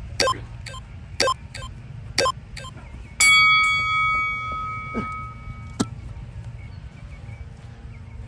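Interval timer beeping a countdown: three short beeps a second apart, then one long beep lasting about two and a half seconds that signals the switch between a rest and a work interval.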